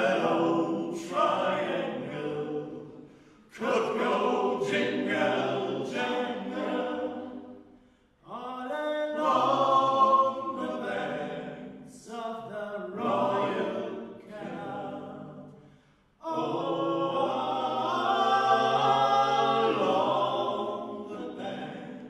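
Male a cappella vocal group singing in harmony without instruments, in long sung phrases broken by short pauses about 4, 8 and 16 seconds in.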